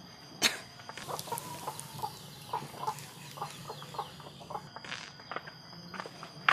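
Chickens clucking in a string of short, separate notes, with a sharp knock about half a second in and another near the end.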